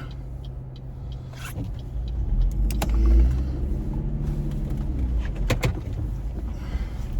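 Car engine running, heard from inside the cabin: a low steady rumble that swells about three seconds in, with a few sharp clicks and taps over it.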